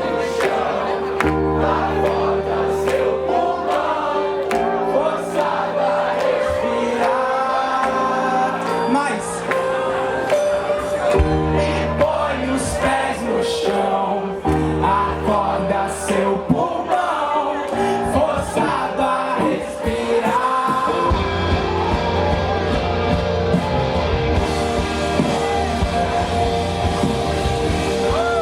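Music with singing over held bass notes. About twenty seconds in it changes to a fuller, denser band sound.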